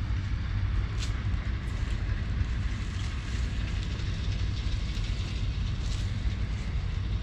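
Heavy diesel machinery running steadily under load, a low, even rumble with a few faint clicks, as a sugarcane harvester and tractor work the cane.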